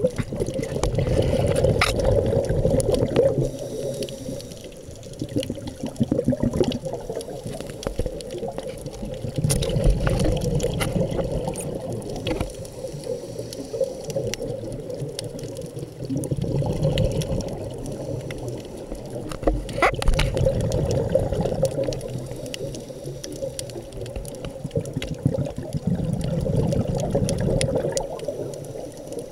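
Scuba regulator exhaust bubbles heard underwater, a low bubbling that swells and fades every five to seven seconds with each exhaled breath. Scattered faint clicks run through it.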